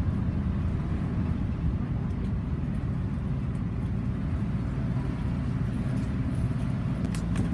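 Bus engine and running rumble heard from inside the passenger cabin as the bus drives in to arrive at the station, with a few faint clicks near the end.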